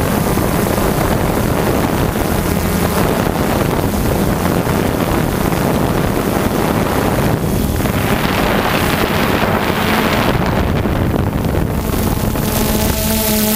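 DJI Phantom 2 quadcopter's motors and propellers whirring steadily in flight, heard from the GoPro mounted on the drone, with wind rushing over the microphone. A low hum holds steady throughout, and near the end a few higher steady tones come in.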